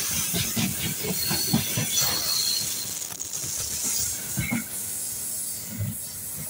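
Freight train's open-top wagons rolling past at speed: their wheels clatter over the rail joints in repeated knocks under a rushing hiss, with brief high wheel squeals. The sound eases a little near the end as the last wagon goes by.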